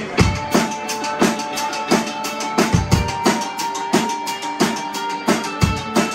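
Live band playing instrumental rock: a drum kit keeps a steady beat, with a hit about every two-thirds of a second and a few heavy bass drum thumps. Bass, guitar and synthesizer play over the drums, with one high note held through the middle.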